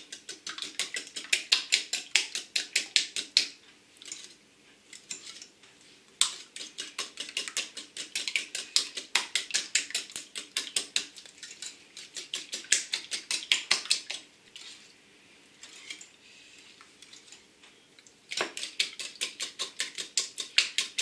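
Wire whisk beating eggs in a bowl, its wires clicking quickly against the side at about five strokes a second. The beating comes in runs, with short pauses about four seconds in and again about fifteen seconds in.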